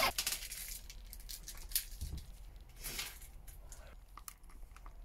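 Light metallic clicks and clinks from a steel concealed cupboard hinge being handled and set against an MDF door, with a couple of short scrapes about two and three seconds in.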